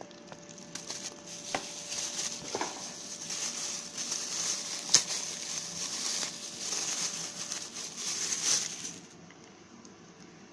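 Plastic packaging crinkling and rustling as an unboxed item is handled, with scattered clicks and one sharper click about five seconds in; it stops near the end.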